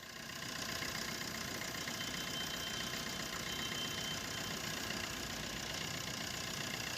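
Maruti Swift VDI diesel engine idling steadily with a fine, even clatter. The chirping noise from its dry AC compressor bearing is absent now that the bearing has been replaced and a new belt fitted.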